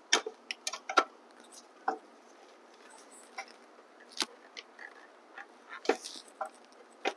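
Scattered light knocks and clicks, a handful of them at irregular times, as a finned aluminium motor controller is worked back into place in an electric dirt bike's frame, its wiring connectors tucked in behind it.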